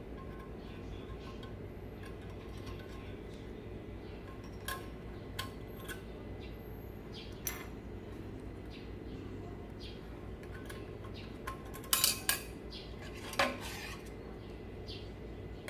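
Small metal utensils clinking and tapping against miniature cookware in scattered light knocks, with a louder clatter of a few strikes about three quarters of the way through and one more soon after, over a steady low background noise.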